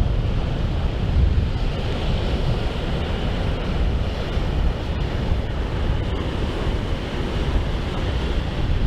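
Strong gusty wind buffeting the microphone, a deep uneven rumble with rougher gusts now and then, over a steady rush of wind and sea.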